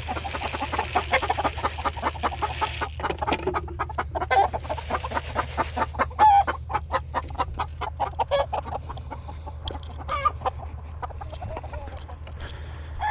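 Chickens clucking, with a dense run of quick, sharp taps and clicks through most of it.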